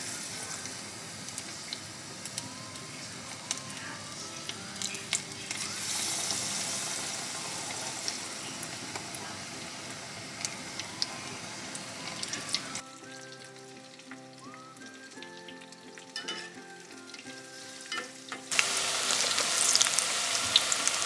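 Pakoras deep-frying in hot oil: a steady sizzle with scattered crackling pops as batter goes into the pan. For several seconds past the middle the sizzle drops away, leaving soft background music, then it comes back louder near the end.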